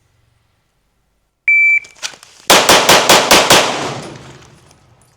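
An electronic shot timer beeps once, and about a second later a pistol fires six rapid shots in just over a second, drawn from the holster in a Bill Drill. The echo of the last shot dies away afterwards.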